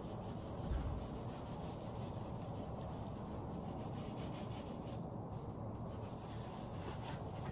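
Gloved fingers rubbing and smearing wet acrylic paint across a stretched canvas, a steady scrubbing rub, with a soft low bump just under a second in.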